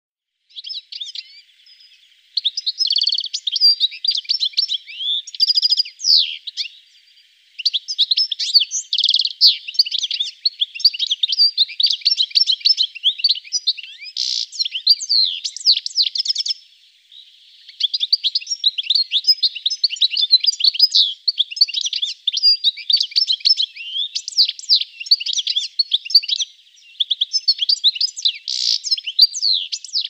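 European goldfinch song: a long, rapid twittering run of quick high notes, with brief pauses about seven and seventeen seconds in.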